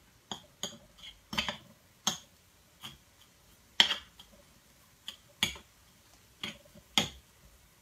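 Metal fork tapping and scraping against a thin metal künefe tray, then a spoon clinking in a small metal butter pan: about a dozen sharp, irregularly spaced clicks.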